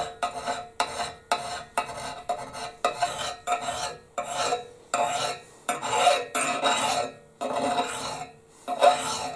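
Flat hand file rasping along a steel axe blade in repeated push strokes, roughly one and a half a second, with short gaps between them. The steel is hard in one spot and soft in another, probably from having sat in a fire.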